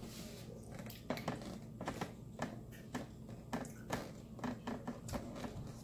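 A person chewing seafood up close, with wet lip smacks and mouth clicks coming irregularly.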